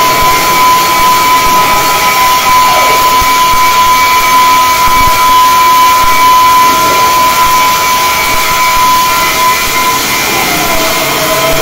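Flux-cored arc welding on a steel beam: the arc crackles and hisses steadily as the weld runs, with a steady high whine over it and a lower tone sliding down near the end.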